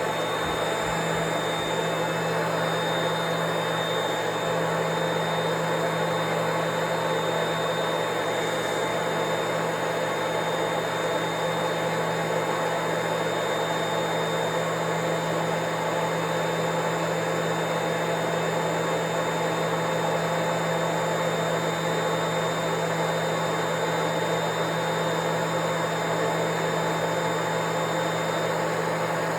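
Vacuum cleaner running steadily: a constant rush of motor and air noise with a thin, high, steady whine.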